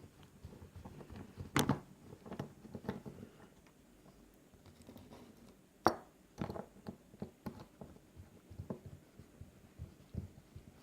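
Handling noises: scattered small clicks and knocks as the camera setup and lock parts are moved about, with two sharper clicks about one and a half and six seconds in.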